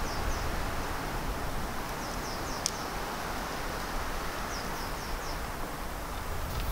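Steady outdoor background hiss with a low wind rumble, over which a small bird gives short high chirps in three little groups about two seconds apart. A single sharp click comes near the middle.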